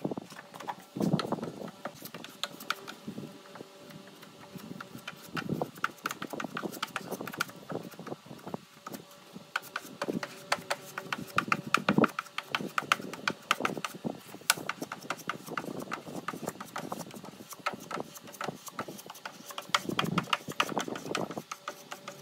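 Body filler being spread and scraped over a car door panel with a hand spreader: irregular scraping strokes mixed with quick clicks and taps of the blade on the panel.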